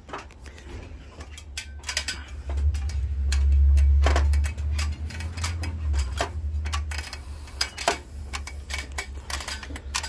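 Hands and shoes on an aluminium ladder during a climb: irregular metallic taps and clanks on the rungs. A low rumble swells in the middle and is the loudest thing heard.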